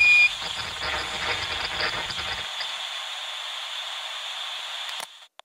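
A short high electronic beep, then a steady static hiss. The low rumble under the hiss drops away about two and a half seconds in, and the hiss cuts off suddenly near the end.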